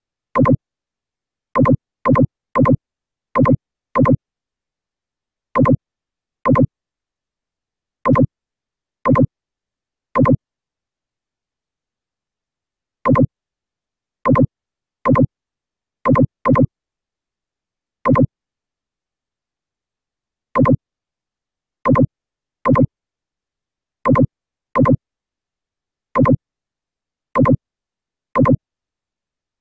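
About two dozen short, identical electronic blips at irregular intervals, with dead silence between them. Each blip is a brief pitched tone that dips slightly in pitch.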